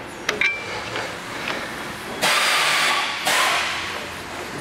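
Steel collar being threaded by hand into a mixing auger's top bearing: a couple of sharp metal clicks and a brief ring near the start. Then two loud bursts of hissing noise in the middle.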